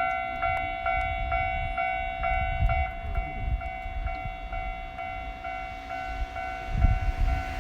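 Japanese level-crossing warning bell ringing, a steady electronic ding about twice a second, over the low rumble of an approaching train. Near the end the hiss of the train grows louder as it draws close.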